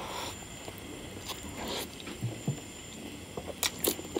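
Bare hand squishing and mixing cooked rice with curry on a plate, then near the end crisp crunching as a raw green chili is bitten and chewed.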